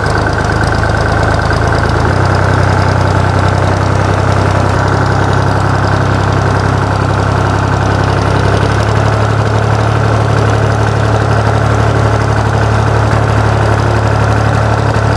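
Al-Ghazi farm tractor's diesel engine running steadily at low revs as the tractor creeps forward in low gear.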